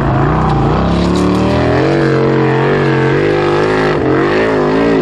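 Formula Offroad hill-climb buggy's engine running hard under full load as it climbs a steep gravel slope. It holds a steady high-rev note, then wavers up and down near the end.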